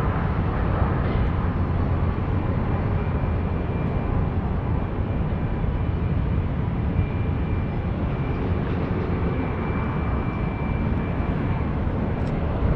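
Jet airliner engines running, a steady low rumble with a faint high whine.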